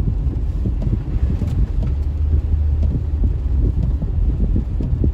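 Car driving over a rough, rutted dirt road, heard from inside the cabin: a steady low rumble of tyres and engine, broken by many small irregular jolts and rattles.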